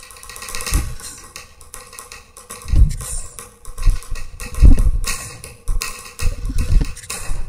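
Avant-garde recorded music of sparse, irregular percussion: deep thuds every second or two, with clicks and knocks between them.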